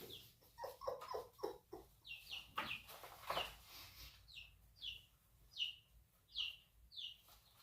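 Chickens clucking in a quick cluster of short low calls, followed by a series of short, falling high-pitched calls repeated about once every 0.7 seconds.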